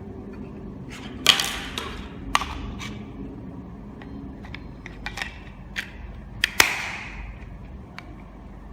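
Sharp plastic clicks and knocks from handling a small vehicle alarm unit while its batteries are fitted and its casing is closed, with a short scrape after the loudest click about a second in and again at about six and a half seconds.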